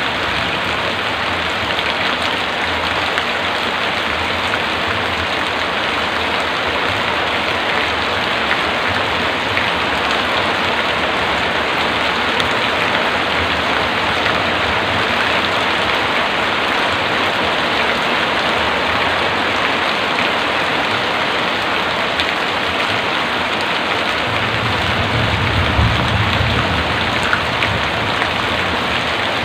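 Heavy rain falling steadily, with a short low rumble near the end.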